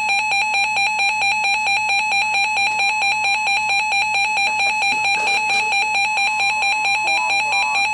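Emergency Alert System attention signal: the two-tone alarm of 853 and 960 Hz sounded together, held steadily, announcing an emergency warning broadcast.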